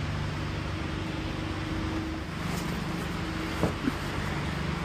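Steady low mechanical hum of a vehicle with faint held tones that shift in pitch about two seconds in, and two short squeaks near the end.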